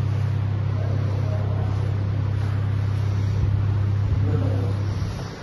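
Steady low hum with a faint hiss above it, dipping briefly near the end.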